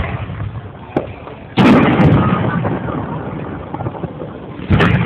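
Aerial fireworks shells bursting: a loud boom about a second and a half in that dies away slowly, and another bang near the end.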